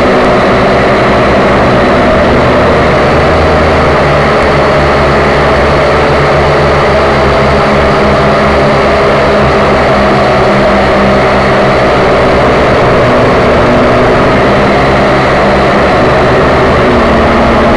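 WLtoys V222 quadcopter's four small electric motors and propellers whirring in flight, loud and close as picked up by its own onboard camera. A steady buzzing whine whose tones shift slightly in pitch as the craft manoeuvres.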